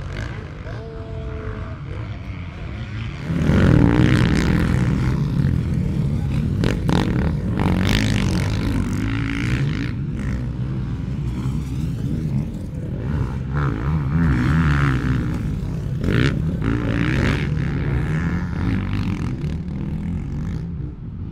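Motocross motorcycle engines running on a dirt track, their pitch rising and falling as riders work the throttle. The sound grows louder about three seconds in.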